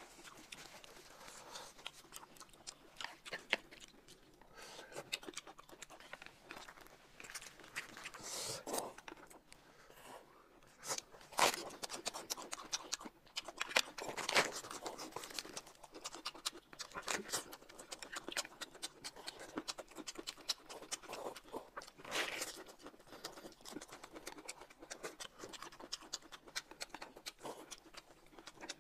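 Close-up mukbang eating sounds: chewing and crunching food, with scattered sharp clicks and scrapes, a few of them louder.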